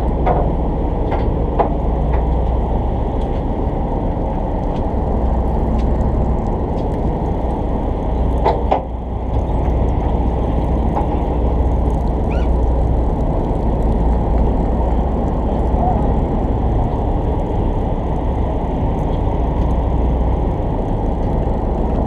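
Steady low engine rumble from a fishing charter boat's engine running, with a few brief clicks.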